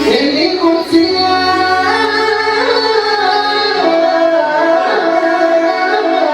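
A young man singing a wavering, ornamented melody over a violin accompaniment that holds steady notes beneath the voice.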